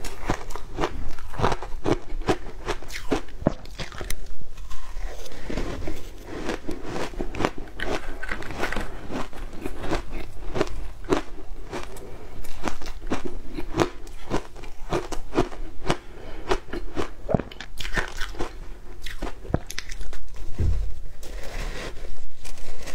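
Close-miked crunching of frozen shaved ice coated in matcha and milk powder, bitten and chewed in a continuous run of crisp cracks.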